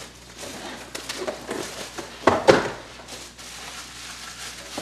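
Handling of cardboard trading-card boxes on a wooden table: rustling and light knocks, with one louder thump about halfway through.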